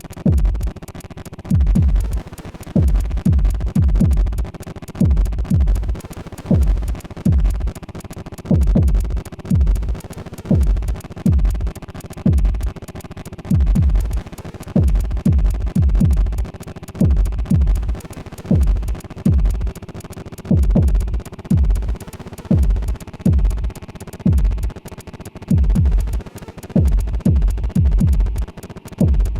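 Modular synthesizer playing dissonant electronic music: deep synthesized kick hits that drop in pitch, in an uneven rhythm of about one to two a second, over a sustained drone and a crackling noise texture.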